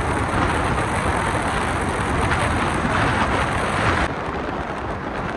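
Car driving through a road tunnel: steady road and tyre noise with a rushing hiss, echoing off the tunnel walls. The hiss lessens about four seconds in.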